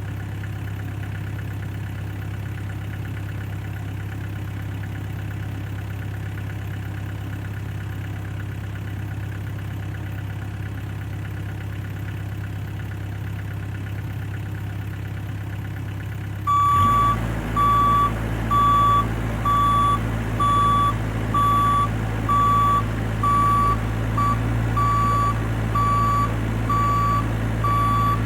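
Bobcat E26 mini excavator's engine running steadily at idle. About two-thirds of the way in the engine gets louder and the machine's travel alarm starts beeping about once a second, a sign that it is moving on its tracks.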